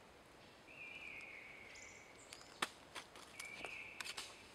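Several sharp knocks in the second half, which are taken for pine cones thrown down by squirrels. A high buzzing call about a second long sounds twice, once early and once near the end.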